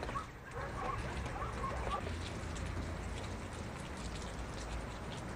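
Outdoor winter ambience. A few short high chirps come in the first two seconds, then scattered light ticks like falling rain or sleet, over a steady low rumble.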